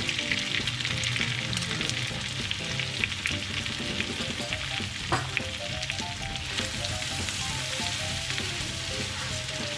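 Gnocchi sizzling and frying in bubbling butter in a pan, the butter crackling steadily, with a wooden spoon stirring through them later on.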